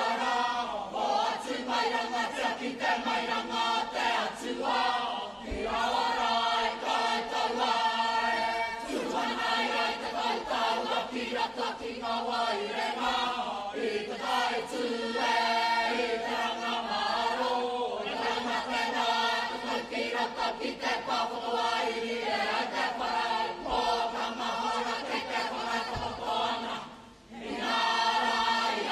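Kapa haka group of boys' and girls' voices singing and chanting in unison in Māori, with a short break near the end before the voices come back in.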